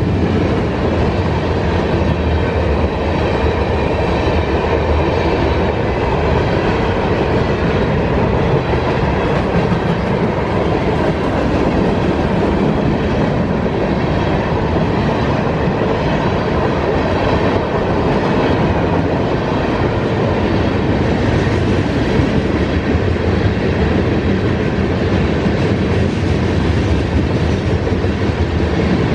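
Freight train of hopper, box and tank cars passing close by at speed: a loud, steady rumble of steel wheels on the rails that runs on without a break.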